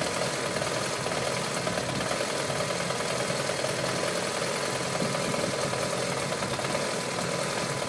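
BMW F650GS motorcycle engine idling with an irregular tickover, the rough idle of a bike that tends to stall when the revs drop. It keeps running.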